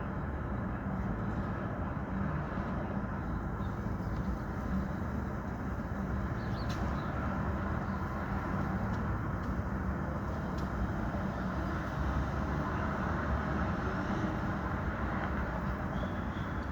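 Steady city street traffic noise: a continuous rumble of passing vehicles and engines with no break.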